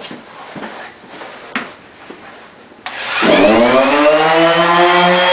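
A few light knocks, then about three seconds in an electric sander switches on, its pitch rising as it spins up and then running steadily.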